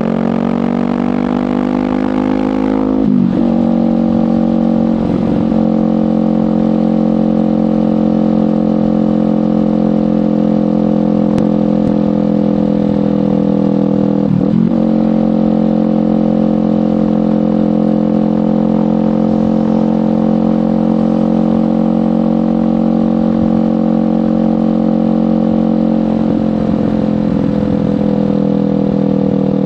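Kawasaki Ninja 500 parallel-twin engine through a LeoVince GP Corsa Evo slip-on exhaust, running at a steady cruising pitch while riding. The pitch dips briefly and recovers about three seconds in, again around fourteen seconds, and at the very end.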